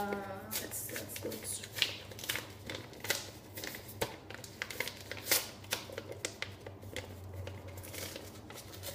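Paper rustling and crinkling as an envelope is opened and a letter is taken out and unfolded by hand, in quick irregular crackles and rustles.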